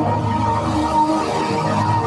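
Music run through a 'chorded' audio effect: several pitch-shifted copies of the same audio stacked into one dense, sustained chord.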